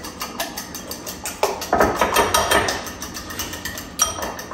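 Eggs being beaten in a bowl: a utensil clicks against the side of the bowl in a fast, even rhythm of several strokes a second.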